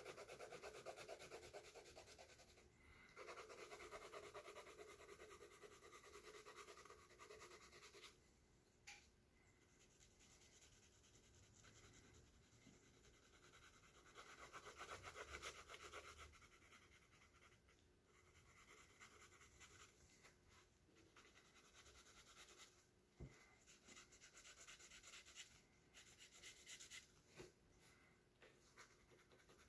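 Faint scratching of a coloured pencil shading back and forth on sketchbook paper, in stretches broken by short pauses.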